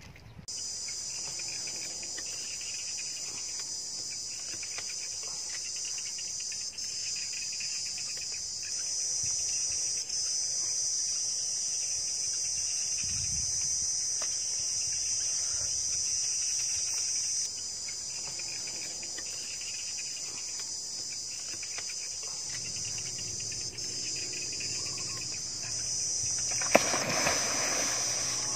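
Steady, high-pitched insect chorus. Near the end, water starts gushing into a concrete pool with a sharp splash and a louder rushing.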